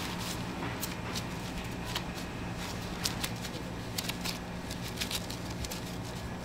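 Gloved hands patting and pressing soft mugwort rice-cake dough around a red bean filling, giving an irregular scatter of sharp little clicks and pats. A steady low hum runs underneath.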